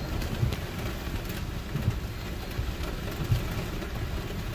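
Heavy rain falling on a car's roof and windshield, heard from inside the cabin, with scattered sharp drop ticks over the low steady hum of the car idling in traffic.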